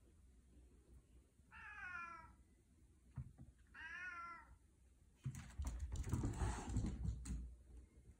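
A house cat gives two short, wavering meows about two seconds apart. A louder burst of scuffling and rustling follows about five seconds in.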